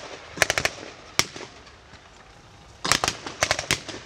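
Bursts of automatic gunfire from blank-firing weapons: a short rapid burst just after the start, a single shot about a second in, then a longer broken burst near three seconds in. Wind rumbles on the microphone underneath.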